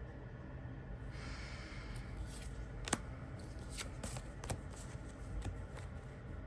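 Tarot and oracle cards being handled: a soft sliding rustle about a second in, then a string of light clicks and taps as cards are picked out and set down.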